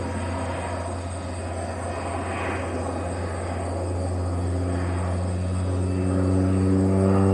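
Crop-duster airplane's propeller engine droning overhead, growing louder over the last few seconds.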